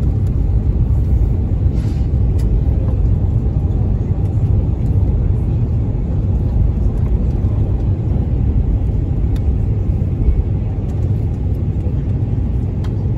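Steady low rumble of cabin noise inside an Airbus A350-900 on its descent: airflow over the fuselage and its Rolls-Royce Trent XWB engines.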